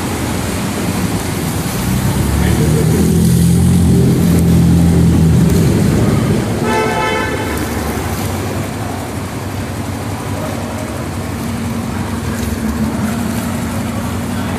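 Road traffic with a vehicle engine rumbling close by, loudest from about two to six seconds in, then a vehicle horn sounding once for about a second.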